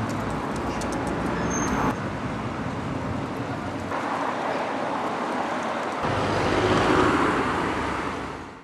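Street traffic noise: a steady rush of passing cars that swells about seven seconds in, then fades out.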